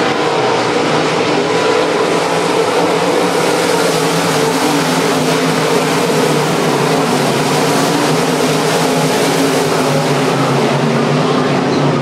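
A field of race cars' engines running together at racing speed: a loud, continuous drone of several engine notes that waver slightly. No single car stands out.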